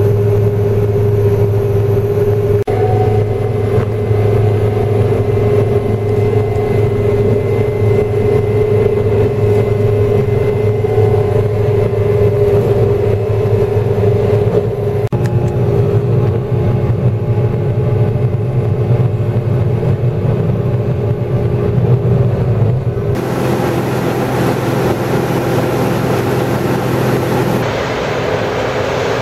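John Deere combine running steadily while harvesting canola, heard from inside the cab: an even engine and threshing drone with a steady hum. Near the end the sound changes abruptly to the combine heard from outside as it unloads canola into a grain cart.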